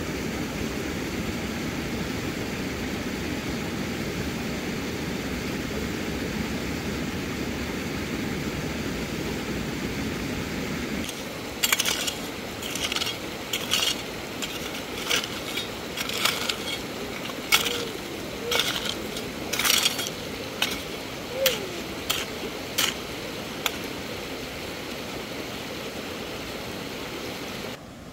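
A steady rush of a rocky stream, then a metal hoe chopping into stony sand and gravel, about a dozen sharp scraping strikes at an uneven pace of roughly one a second.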